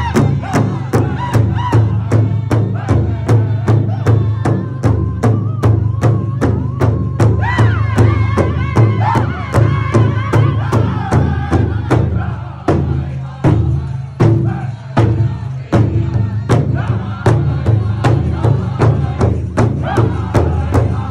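Powwow drum group striking a large shared hide drum with padded sticks in a fast, even beat while the singers sing over it, their voices clearest in the middle. The beat goes lighter and less even for a few seconds past the middle, then picks back up.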